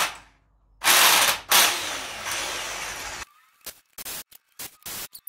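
Electric impact wrench hammering in short bursts on the 19 mm flywheel bolts of a BMW M52 engine; the bolts are in very tight and resist loosening. From about three seconds in, the sound comes in short, abruptly cut fragments.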